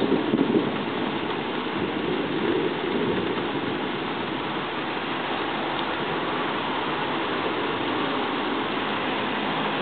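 Steady rain falling on a street and wet pavement, with the low rumble of thunder dying away in the first second.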